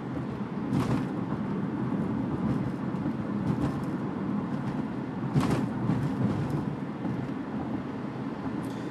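Road and tyre noise inside a Toyota Prius cabin at about 45 mph: a steady low rumble. Two brief louder thumps come through, about a second in and about five and a half seconds in.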